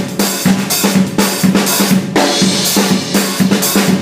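Drum kit playing an up-tempo soca groove: a steady four-on-the-floor bass drum about twice a second under a busy sixteenth-note 'one e-and, two e-and' pattern with snare accents, the figure that gives soca its extra drive over calypso.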